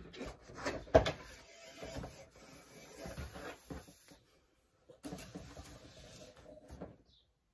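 A 5/16-inch threaded speargun shaft sliding and scraping against its PVC shipping tube as it is drawn out and handled, with a sharp knock about a second in.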